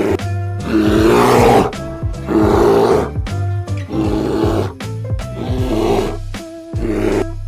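A large wild animal giving a series of about five harsh, loud calls, roughly a second apart, over background music.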